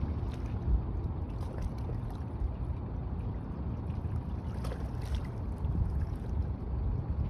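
Low, gusty rumble of wind buffeting the microphone outdoors, with a few faint scattered ticks.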